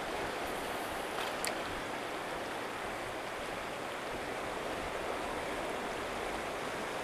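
Steady rush of the Missouri River's current along the rocky bank, with a faint tick or two about a second and a half in.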